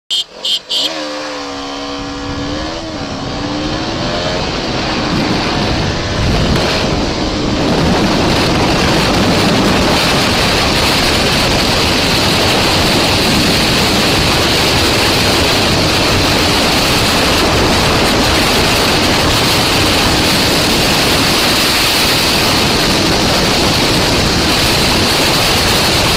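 Motorcycle engine heard from an onboard camera. Its note rises and falls in pitch for the first few seconds. It is then buried under a loud, steady rush of wind noise at high speed.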